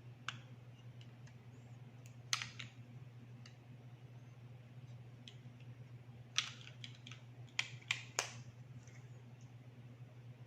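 Light, scattered clicks and taps of small plastic things being handled, with a couple around two seconds in and a quick run of them between about six and eight seconds, over a faint steady low hum.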